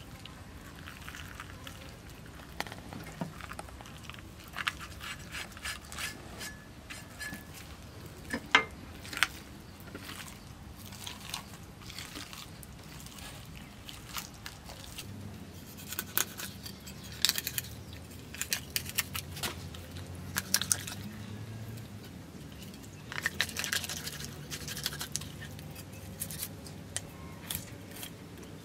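Hands pulling the guts and flesh out of a gutted snakehead fish on a wooden chopping board: irregular wet crackles and sharp clicks, with a knife starting to slice the fish near the end.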